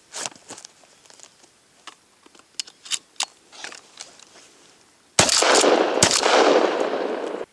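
Light clicks and knocks of a Fabarm Martial 12-gauge pump shotgun with a 12.5-inch barrel being handled. About five seconds in it fires: a loud shot with a long echoing tail, and a second sharp report under a second later, then the sound cuts off suddenly.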